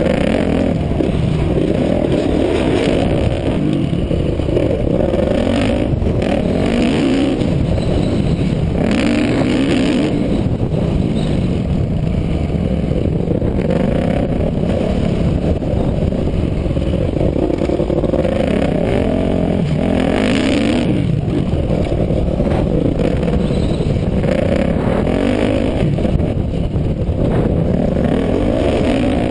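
Dirt bike engine heard from the rider's onboard camera, revving up and down without a break as the bike is ridden around a motocross track.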